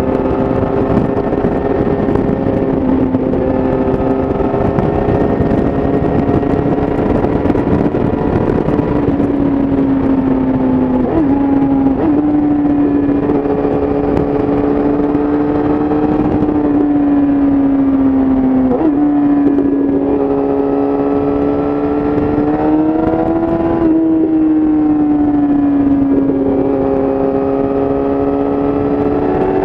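Yamaha YZF-R6 inline-four sport bike running through an Akrapovic exhaust at steady highway speed, with wind rush. The engine note holds a steady pitch that drifts slowly up and down, with a few quick sharp dips where the throttle is rolled off and back on.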